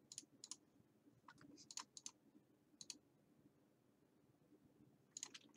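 Faint computer mouse clicks, scattered and often in quick pairs, with near silence between them.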